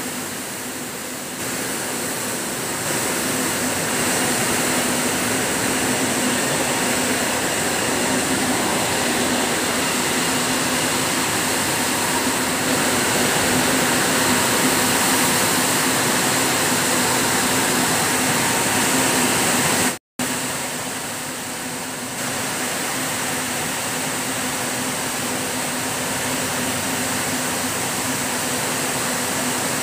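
Rows of spinning frames running in a yarn spinning mill: a loud, steady mechanical whir and hiss with a low hum underneath. It cuts out for an instant about twenty seconds in.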